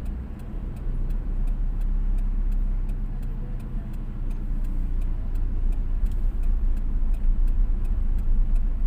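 A car's engine and road rumble heard from inside the cabin, with a turn-signal indicator clicking steadily about three times a second as the car turns at an intersection.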